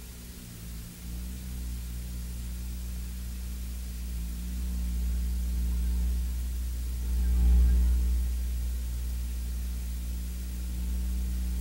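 Steady low rumble with a constant hum and hiss on an old news-film soundtrack. The rumble swells to its loudest about seven and a half seconds in, then settles.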